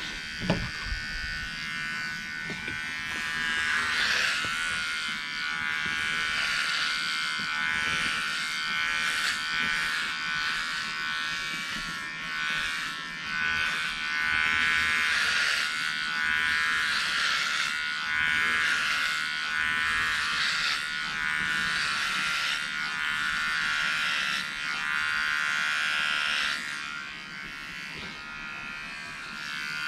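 Cheap electric dog-grooming trimmer buzzing as it is run over the back of the head, cutting hair. The buzz swells and eases every couple of seconds and drops lower near the end.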